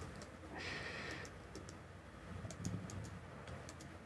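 Faint computer keyboard keystrokes and mouse clicks, scattered singly and in small clusters, with a short soft hiss about half a second in.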